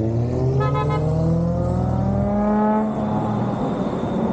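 A car engine accelerating hard, its exhaust note rising steadily in pitch for nearly three seconds, then breaking into a rougher, noisier exhaust rumble as the revs drop.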